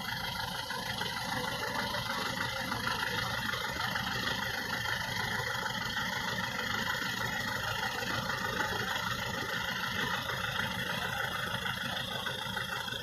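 An engine running steadily at idle, an even mechanical drone that holds at one level and does not change.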